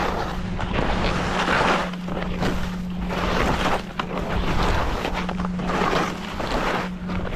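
Skis scraping and hissing over snow through a series of mogul turns, the noise surging about once a second, with wind buffeting the microphone.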